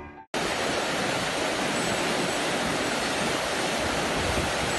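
Music cuts off at the very start, and after a brief gap a steady rushing noise begins and runs on evenly.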